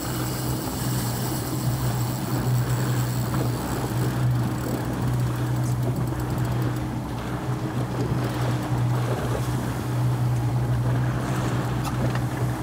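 A small fishing boat's single engine running steadily under way, a constant low hum, with water rushing along the hull and wind on the microphone.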